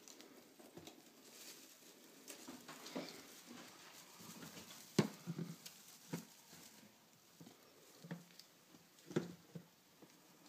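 Mice scurrying on straw bedding in a plastic pet carrier: faint rustling and scratching, broken by scattered sharp knocks against the plastic, the loudest about five seconds in.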